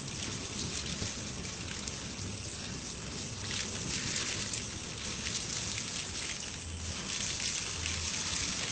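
Gas burning as a jet of flame from an open cooking-gas cylinder valve, a steady hissing rush.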